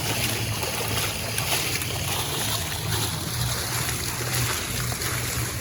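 Continuous splashing and running water in a swimming pool, with a steady low hum underneath.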